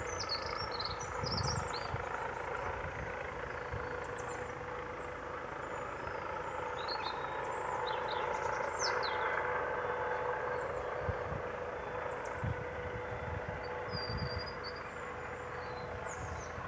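A steady mechanical hum with a held tone, with small birds chirping now and then over it and gusts of wind buffeting the microphone.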